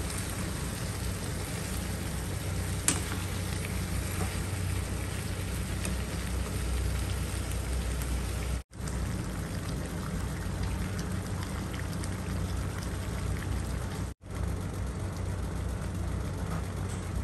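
Pork belly and vegetables sizzling and simmering in a wok on a gas stove, a steady hiss with a low hum beneath it. A sharp click about three seconds in, and the sound breaks off for an instant twice.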